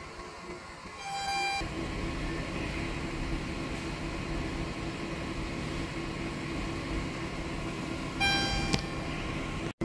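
Ambience of a station concourse: a steady low hum, with a short electronic beep about a second in and another near the end.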